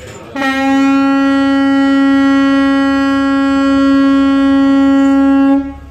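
The Goodtime III sightseeing boat's horn sounds one long, steady, loud blast of about five seconds. It starts about half a second in and cuts off sharply near the end. A single prolonged blast like this is the signal of a vessel getting under way from its berth.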